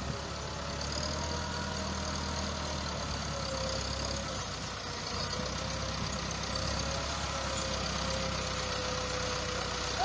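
Massey Ferguson 385 tractor's four-cylinder diesel engine running steadily under load as it pulls a fully loaded wood trolley, growing a little louder as it approaches.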